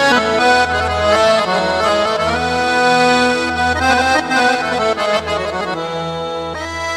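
Yamaha PSR-A5000 arranger keyboard playing an Arabic accordion voice: a melody in the accordion sound over low bass notes that pulse at a steady pace.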